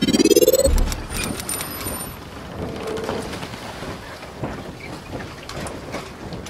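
Logo-animation sound effects: a rising whoosh that ends in a deep boom about a second in, then a steady hissing, crackling noise with scattered clicks and a brief high shimmer.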